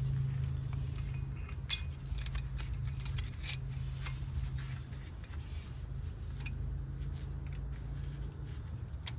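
Light metallic clicks and clinks of front brake parts being handled while the rotor and caliper bracket are shifted into position, over a steady low hum. The clicks are scattered, busiest in the first half.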